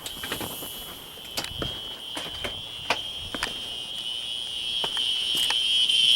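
A continuous, high-pitched electronic tone from fire alarm equipment, growing steadily louder toward the end, with scattered clicks and knocks over it.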